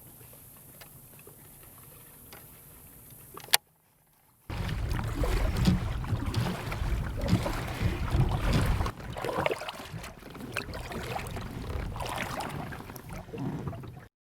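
Kayak on the water: a quiet stretch with a few faint ticks and a sharp click, a short break, then about ten seconds of irregular splashing and knocking around the hull with a low rumble.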